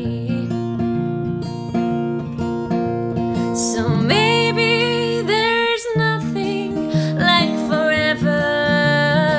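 Acoustic guitar playing chords with a steady rhythm, joined from about four seconds in by a wordless sung melody that wavers and glides in pitch.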